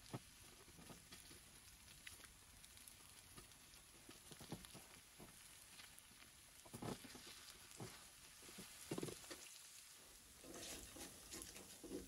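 Faint sizzle of eggs and hash browns frying in a cast-iron skillet, with a few soft scrapes and taps of a spatula against the pan.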